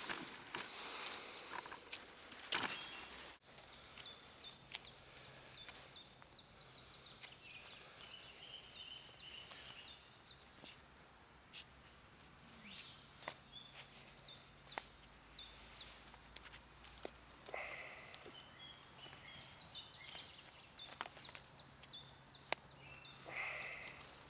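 Small birds chirping, a steady run of short, high calls that slide down in pitch, several a second. Occasional scraping and rustling lies underneath, louder in the first few seconds.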